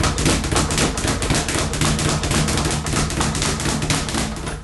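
Speed bag being punched continuously, a rapid, even drumming of the bag rebounding off its overhead board, with a brief letup near the end.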